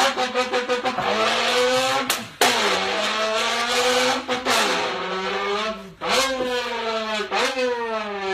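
A man's voice imitating a racing car's engine at full throttle, as in a drag race. The revs climb in pitch in several runs, each cut off by a short break like a gear change.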